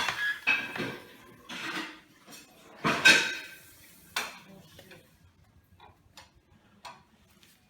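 Kitchen clatter of dishes, pans and utensils: a string of clanks and knocks, the loudest about three seconds in, thinning to a few light clicks in the second half.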